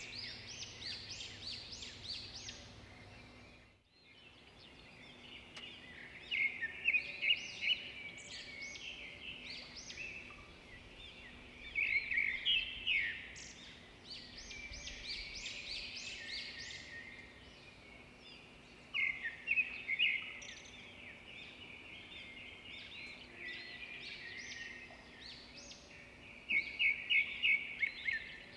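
Pack of African wild dogs twittering over a carcass: bouts of rapid, high-pitched, bird-like chirps that rise and fall every few seconds. The sound drops out briefly about four seconds in.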